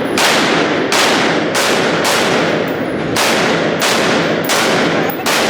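Gunfire at a shooting range: shot after shot in quick succession, roughly two a second, with echoing tails that run together into a continuous loud din.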